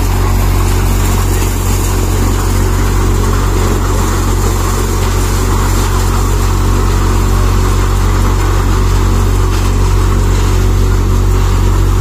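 A farm four-fan cutter machine running steadily under power: a continuous, even engine drone with a churning clatter over it and no change in speed.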